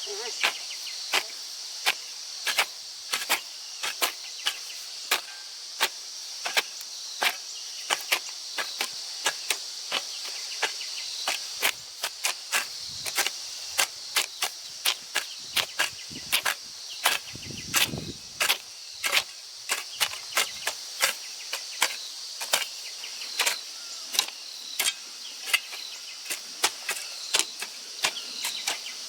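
Digging tools striking soil over and over, sharp irregular hits about two a second, over a steady high drone of insects.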